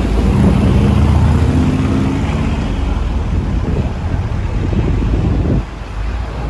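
A road vehicle's engine running close by, a loud low rumble that drops off suddenly near the end.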